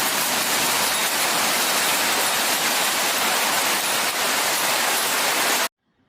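Heavy downpour: a loud, dense, steady hiss of rain that cuts off suddenly near the end.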